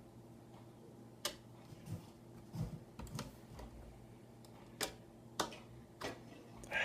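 Scattered light clicks and taps, about six, from a small screwdriver and screws against the plastic laptop screen parts and bracket as they are handled, over a faint steady hum.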